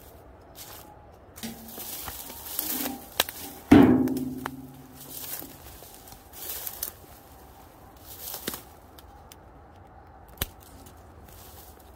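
Footsteps pushing through dry brush and dead twigs: irregular rustling and crackling, with one loud sudden knock about four seconds in and a sharp twig snap near the end.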